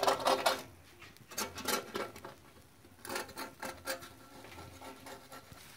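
Metal fork scraping across a comal, in several short bursts of quick scrapes, as it works under the edges of an egg cooked on a bed of salt to loosen it from the griddle.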